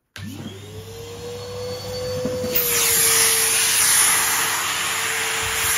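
Numatic Nuvac cylinder vacuum cleaner switched on: the motor spins up with a quickly rising whine that settles into a steady high hum. The rush of air grows much louder about two and a half seconds in, as the suction builds.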